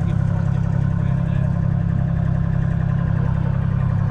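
Ford Dexta 2000's 2.6-litre three-cylinder diesel engine idling steadily.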